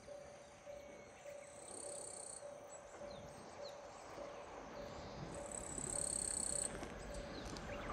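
A station train-approach indicator sends out an even string of short electronic beeps, warning of an oncoming train. Insects buzz in two spells over it, birds chirp briefly, and the low rumble of the approaching train grows near the end.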